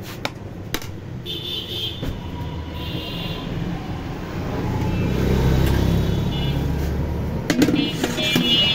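Street traffic: a motor vehicle's engine rumble swells about five seconds in, with short high-pitched horn beeps near the start, around three seconds in and near the end. A few sharp clinks of dishes come through.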